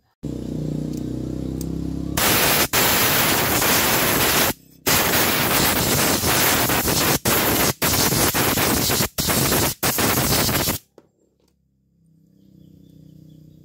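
Compressed air hissing from an air blow gun in a run of loud blasts with brief breaks between, blowing out the jets and passages of a motorcycle carburetor during cleaning. It is preceded by a softer low rumble and cuts off a few seconds before the end.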